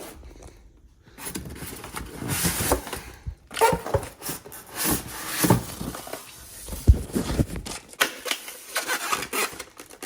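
Cardboard box and packaging being opened and handled: irregular rubbing and scraping, with a sharp knock about seven seconds in.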